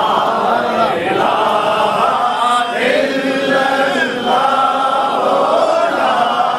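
Unaccompanied male devotional chanting of an Urdu naat, drawn out in long held notes with no instruments.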